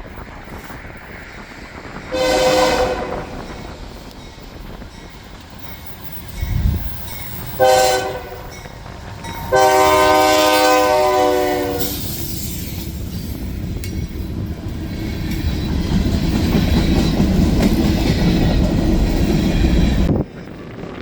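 Train's air horn sounding three blasts, two short and then one of about two and a half seconds, followed by the low rumble of the passing train growing louder until it cuts off suddenly near the end.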